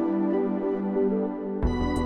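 Background music: a soft, sustained synth melody, with bass and a drum beat coming in near the end.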